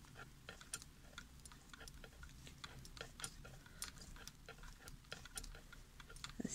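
Knitting needles clicking faintly and irregularly, several clicks a second, as stitches of 1x1 rib are knitted back and forth.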